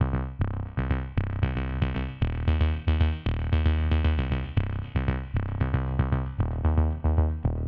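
Electronic background music with a steady beat: short synth notes, about four a second, over a deep bass.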